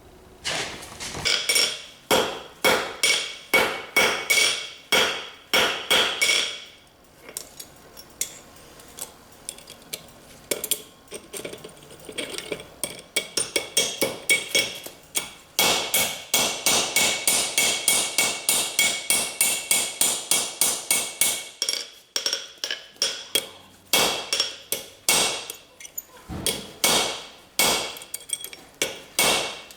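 Hammer striking steel on an anvil while forging lag bolts. Runs of blows ring out high and metallic, with lighter taps a few seconds in and a long fast run of blows in the middle.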